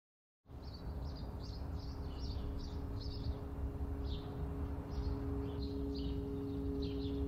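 Small birds chirping in short, quickly repeated calls over a steady low rumble and a held two-note hum, all starting abruptly about half a second in.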